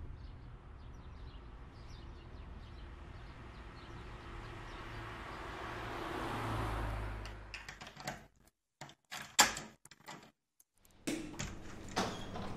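A low steady hum with a whooshing swell that builds to about seven seconds in and fades. Then a door's latch and handle click and knock several times, irregularly, as the door is opened.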